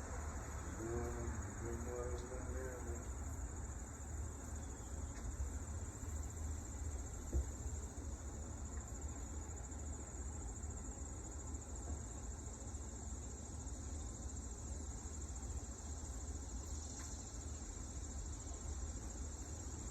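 Insects chirring steadily in a high, continuous, finely pulsing chorus over a low steady rumble. There is a single short knock about seven seconds in, and faint voices are heard in the first few seconds.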